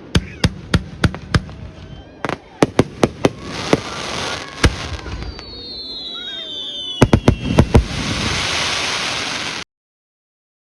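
Fireworks shells bursting in quick succession: sharp bangs with a crackling hiss from crackling stars and a few falling whistles about halfway through. About seven seconds in comes a dense volley of bangs under a loud crackle, then the sound cuts off abruptly.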